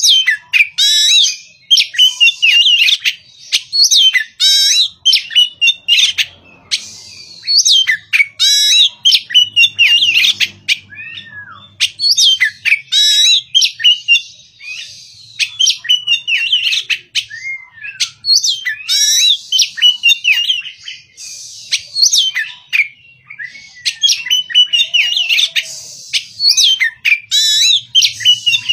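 Oriental magpie-robin (kacer) singing: rapid, loud phrases of varied high whistles and chattering notes, delivered in quick succession with a few short pauses.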